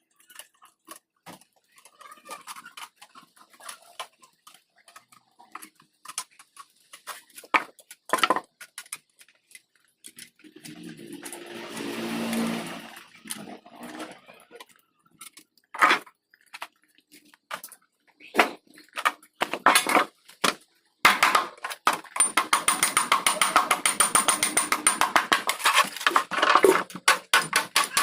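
Scattered clicks and knocks of hand tools and parts being handled, with a brief hum near the middle. About three quarters of the way in, a ratchet wrench starts clicking rapidly and steadily as it turns a fastener.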